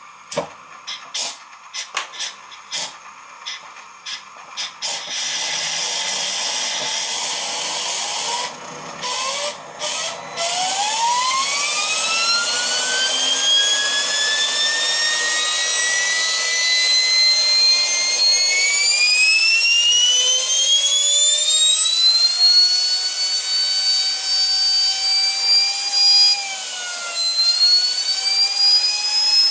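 Small homemade jet engine starting up: a run of sharp clicks, then a steady rush of air, then a whine that climbs in pitch as the engine spools up, dipping briefly near the end before climbing again.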